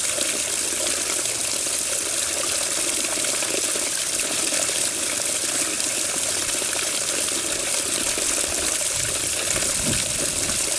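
Water running steadily with a hissing rush, a deeper gurgle joining in near the end.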